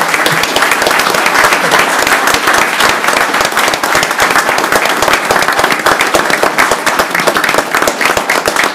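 A roomful of people applauding, a dense, steady patter of many hands clapping.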